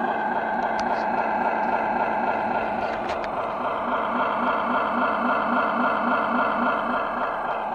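Electronic sound unit of a 1:14 Tamiya Kenworth RC truck playing a simulated big-rig diesel engine, idling steadily with an even, regular pulse and a couple of faint clicks.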